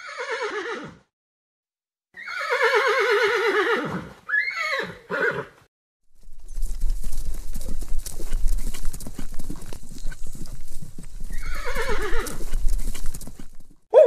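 A horse whinnying several times in quavering calls, then a long run of hoofbeats with one more whinny near the end.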